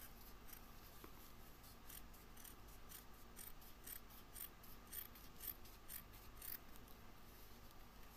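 Scissors cutting through two stacked black sheets in a quick, irregular run of faint short snips, a few a second, that stops about six and a half seconds in.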